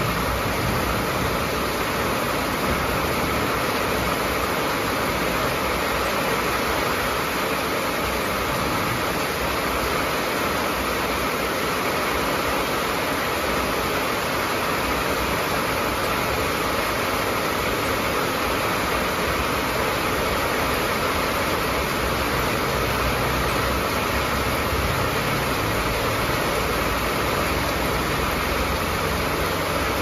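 Heavy rain pouring onto a corrugated metal roof and the ground: a steady, dense hiss.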